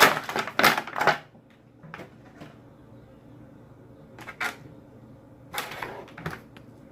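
Plastic action-figure packaging being handled: a dense cluster of crinkles and clicks in the first second, then a few quieter clicks and rustles.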